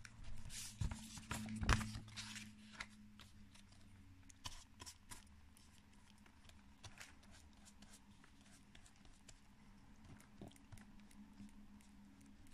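Faint paper rustling and crinkling with soft taps as hands press and smooth glued paper flaps, busiest in the first few seconds. A faint steady low hum runs underneath.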